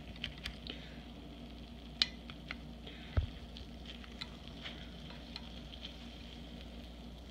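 A metal fork clicking and scraping against a ceramic baking dish while cutting into a baked meatloaf: scattered sharp clicks, the loudest about two seconds in, with a dull thump about three seconds in, over a faint steady hiss.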